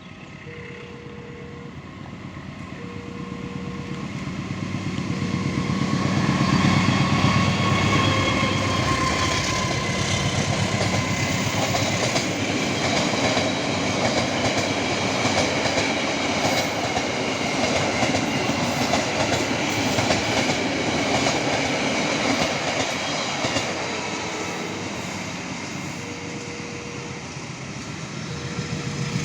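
A train passing close by, its wheels clattering over the rail joints; the rumble builds over the first several seconds, holds loud, and eases off near the end. A repeating beeping tone, each beep about a second long, sounds at the start and again near the end.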